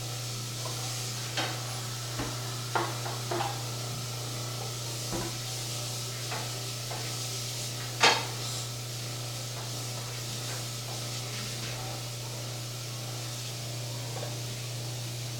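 Scattered light clicks and taps, the loudest about eight seconds in and few after it, over a steady low hum.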